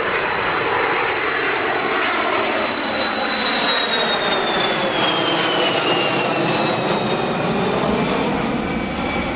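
Kawasaki C-1 jet transport's two Pratt & Whitney JT8D turbofans flying past in a steep turn: a loud, steady jet roar with a high whine that holds, then falls in pitch from about three seconds in as the aircraft goes by.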